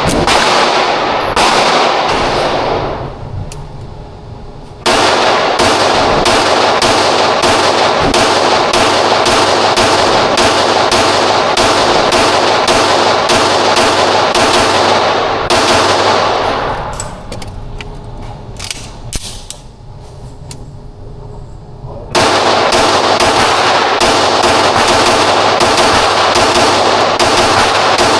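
Long strings of rapid semi-automatic pistol fire, about three shots a second, with two pauses of a few seconds.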